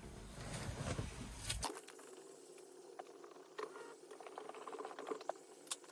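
Faint rustling and a few light clicks as a car battery terminal is reconnected by hand.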